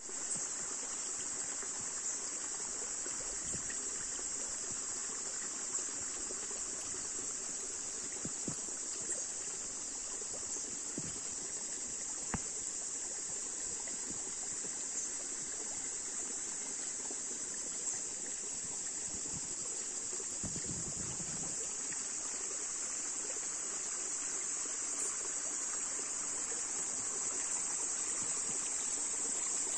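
A small shallow woodland stream trickling over stones, under a steady high-pitched drone of insects that carries through the whole time.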